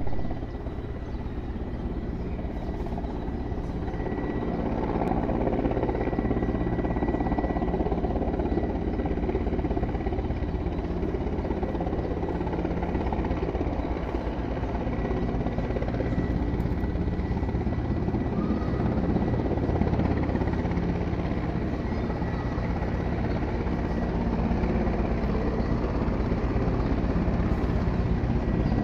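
Military firefighting helicopter flying overhead, its rotor beating steadily and quickly, with a thin high turbine whine. It grows louder over the first few seconds and again near the end as it comes closer.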